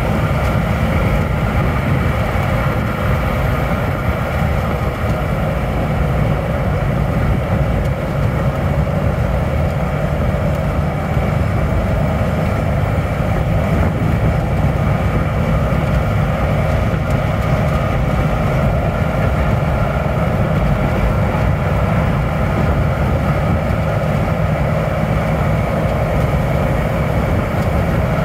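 2001 Hummer H1's 6.5-litre V8 turbo diesel running steadily at highway cruising speed, about 2,000 rpm, heard inside the cab together with road and tyre noise.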